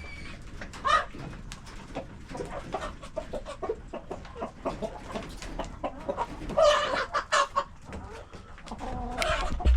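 A flock of laying hens clucking and calling in a poultry house, with many short overlapping calls and small knocks, louder bursts of clucking about a second in and again near the end.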